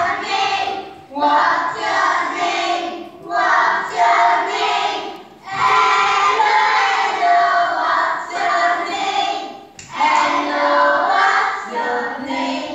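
A group of children singing a song together, in phrases of one to four seconds with short breaks between.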